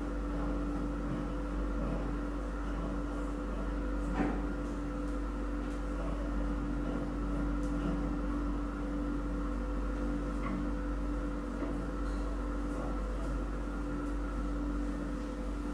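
A steady electrical or mechanical hum, with a sharp knock about four seconds in and a few faint ticks.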